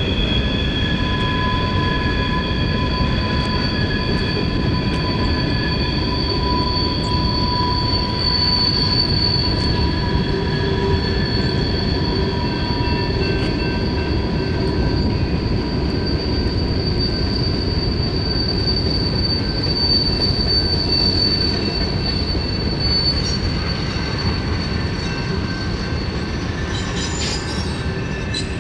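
Train rolling past with a dense low rumble of wheels on rail and a sustained high-pitched wheel squeal made of several steady tones, one high tone dropping out near the end.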